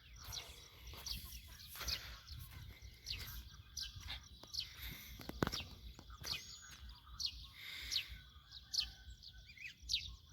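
Small birds chirping: many short, sharp calls repeating every half second or so, with a couple of hooked, looping calls in the second half, over a low steady rumble.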